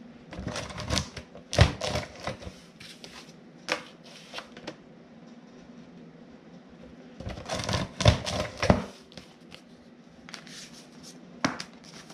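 A Cinch book-binding hole punch working through paper pockets: two bursts of clattering clicks and knocks about seven seconds apart as each pocket is slid in and punched, with a few single clicks of paper and machine being handled between them.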